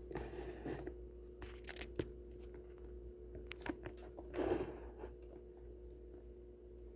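Hands handling small objects while setting up: scattered light clicks and taps, with a brief rustle about four and a half seconds in, over a faint steady hum.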